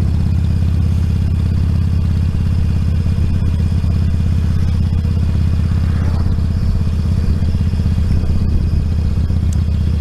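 Motorcycle engine running steadily at road speed, a deep even drone with wind noise, heard through a microphone inside a helmet with the chin bar raised.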